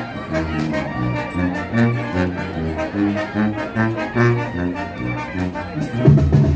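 Live band music led by brass instruments playing a lively melody over a bass line, with sharp percussive clicks on the beat; louder low notes come in about six seconds in.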